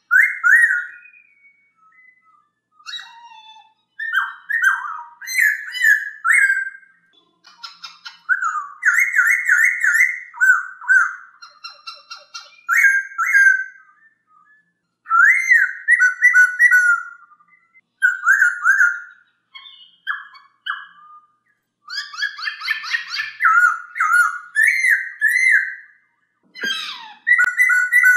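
Black-throated laughingthrush (poksay Hongkong) singing: loud whistled song phrases of quick warbled notes, in bursts a second or two long broken by short pauses, with higher chattering notes over them.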